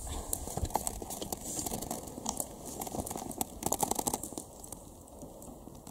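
Crunching and crackling of someone biting and chewing crusty toasted bread, a quick run of short sharp crunches that comes thickest about two-thirds of the way through.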